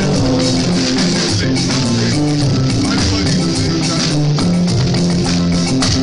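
A live band playing: a drum kit with cymbals keeping a steady beat under an electric guitar's low, sustained notes.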